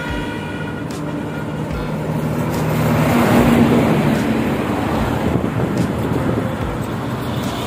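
A truck drives past close by, its engine and tyre noise swelling to a peak about three and a half seconds in and then fading. A vehicle horn is sounding at the start and stops after about a second and a half.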